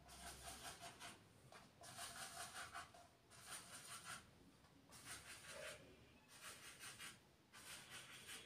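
Faint scratching of a marker pen on a whiteboard, drawn in a series of short strokes with brief pauses between them.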